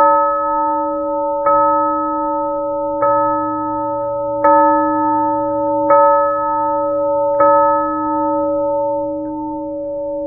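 A single church bell struck six times, about one and a half seconds apart, each stroke ringing on into the next; after the last stroke the ringing slowly dies away.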